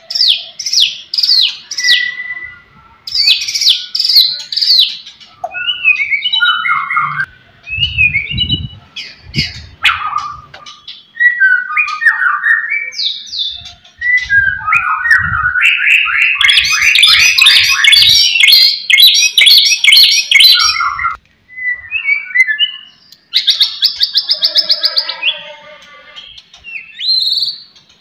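White-rumped shama singing hard: a long, varied song of fast runs of repeated sharp notes, whistled glides and a dense rattling stretch in the middle. A few low thuds come in around the middle.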